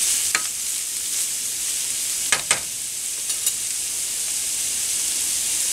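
Ground beef, Italian sausage and chopped onion sizzling steadily as they fry in a skillet, stirred with a metal spoon that gives a few sharp clinks.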